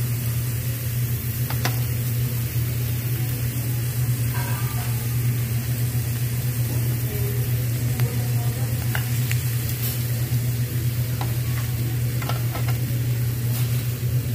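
Pork belly and octopus sizzling on a round perforated Korean barbecue grill, a continuous crackle over a strong steady low hum, with a few sharp clicks now and then.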